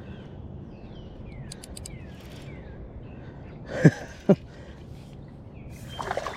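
Birds calling outdoors with a string of short falling chirps, over a low steady background. About four seconds in come two loud short knocks half a second apart, and near the end a noisier patch of water and movement.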